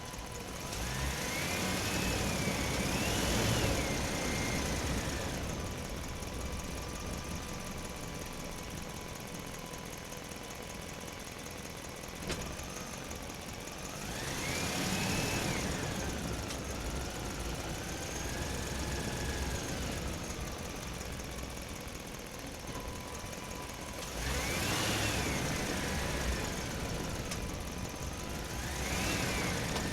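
A motor running steadily, revving up and back down four times, each rise and fall lasting a few seconds.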